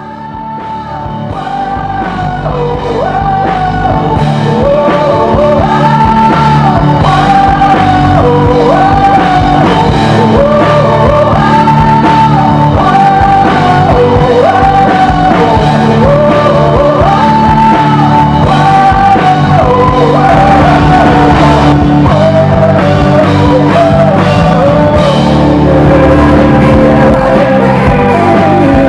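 Rock band playing live, a male lead voice singing a loud, strained melody over electric guitar and the full band. The music fades in over the first few seconds, then holds at full level.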